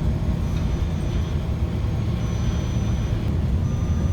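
Steady low rumble of a moving road vehicle, its engine and tyre noise running evenly.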